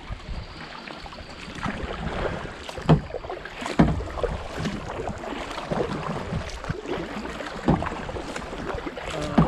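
Kayak paddling on moving creek water: water splashing and lapping around the boat, with a few sharp knocks spread through the stretch.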